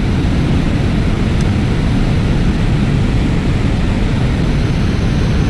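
Steady roar of water pouring over a dam spillway and churning in the tailwater, a dense rumble with no breaks.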